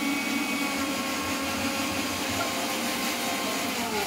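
A steady motor hum with a strong low tone and overtones above it, its pitch sagging near the end.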